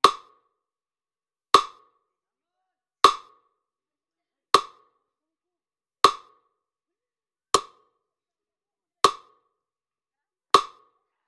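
Metronome ticking with a wood-block click, eight evenly spaced ticks about a second and a half apart (about 40 a minute). It sets the pace for the dipping test's raise-and-lower movements.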